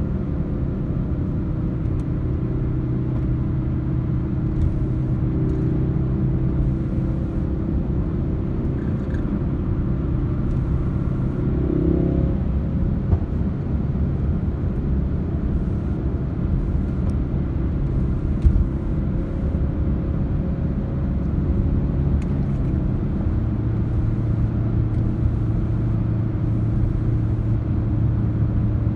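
Ford Focus RS engine and tyre noise heard inside the cabin while cruising steadily. About three-quarters of the way through, the engine note settles a little lower and grows stronger. There are a couple of light knocks from the car.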